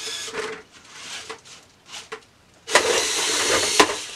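Electric motors and gears of a VEX competition robot whirring as its lift arm raises a cube to score it in a tower. Near the end comes a louder, noisy stretch about a second long that ends in a sharp knock.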